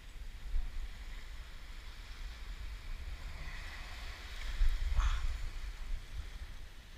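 Wind buffeting the microphone over small waves washing up the sand, the wash swelling a few seconds in, with one short sharp click about five seconds in.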